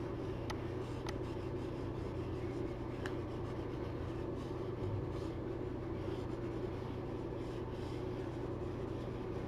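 Steady low hum of room and recording noise, with a few faint clicks of a stylus tapping a pen tablet as digital ink is erased.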